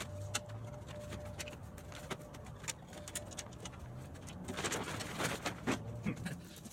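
Scattered light clicks and knocks of gear being handled on a trailer, then a plastic tarp rustling as it is pulled off, about two thirds of the way in.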